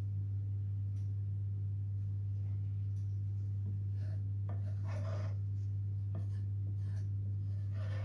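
Wooden spatula stirring thick rice pudding in a pan, scraping and rubbing softly against the pan, over a steady low hum. Brief louder rustling patches come about halfway through and again near the end.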